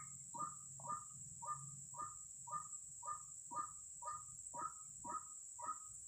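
White-breasted waterhen calling: one short call repeated evenly about twice a second, with a steady high-pitched whine behind it.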